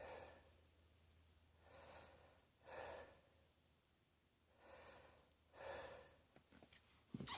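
Faint breathing by a person: about five audible breaths in and out, with a short low knock near the end.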